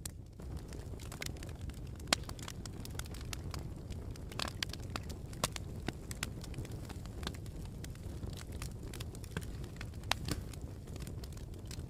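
Campfire burning, the wood crackling with irregular sharp pops over a steady low rumble. The loudest pops come about two seconds in and again near the end.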